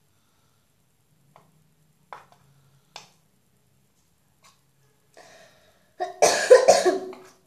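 A few faint clicks and taps, then a person coughing, a loud fit of two or three coughs close together about six seconds in.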